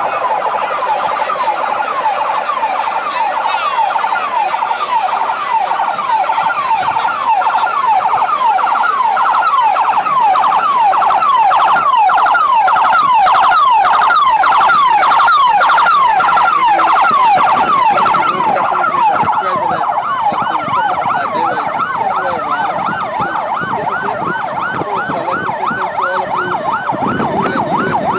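Police escort vehicles' sirens in a fast yelp, each cycle a quick rising sweep repeated a few times a second, with more than one siren sounding at once. They grow louder toward the middle as the vehicles pass.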